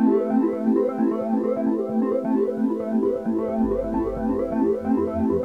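Background music: a quick, evenly paced run of keyboard-like notes, with a low bass line joining a little past halfway.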